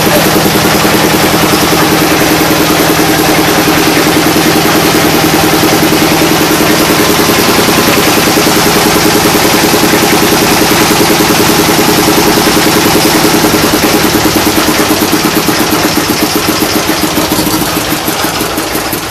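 Stationary engine powering a brick-making extruder machine, running steadily with a fast, even pulse, easing slightly in level near the end.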